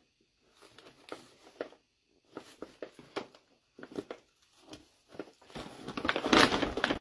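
Paper bag rustling and crinkling as a cat shifts about inside it: short scattered crackles, then a louder, continuous crinkling near the end as the cat tumbles in the bag.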